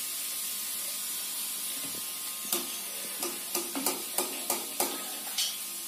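Hot oil hissing steadily as field beans deep-fry. From about halfway through, a run of short sharp clicks and taps, about three a second.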